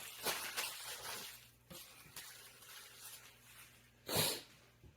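Faint rustling and handling of packaging and parts during an unboxing, with a short, louder rustle about four seconds in.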